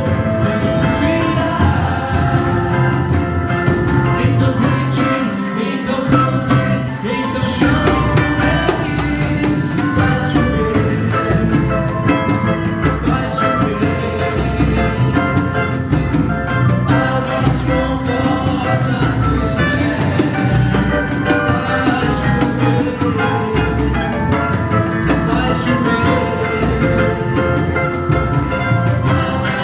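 Samba gospel band playing with singing over a steady percussion beat. The bass drops out briefly about six seconds in.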